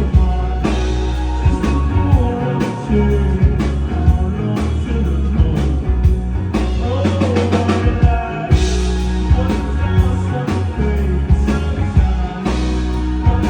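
Live rock band playing a song at full volume: drum kit keeping a steady beat under a heavy bass line and guitars.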